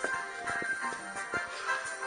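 Background music with a melody of steady notes and a few short beats.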